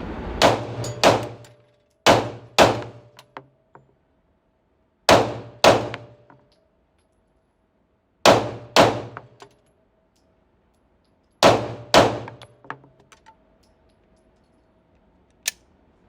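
Glock 48 9mm pistol fired in five quick pairs of shots, a few seconds between pairs, each pair followed by a faint lingering ring and small clinks. A single sharp click near the end.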